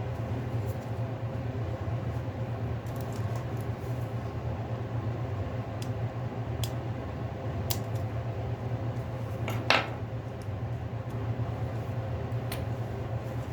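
Small tools and parts clicking and tapping during a smartphone teardown, a few sharp ticks here and there and one louder scraping click just under ten seconds in, over a steady low hum.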